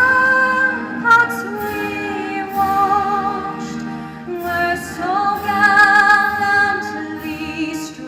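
Music: a woman singing long, held notes with vibrato, in two phrases with a short break about halfway through.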